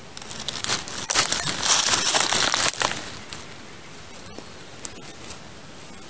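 Close, loud rustling and crackling of fern fronds and dry forest-floor leaves being pushed through, for about three seconds, followed by a few faint ticks.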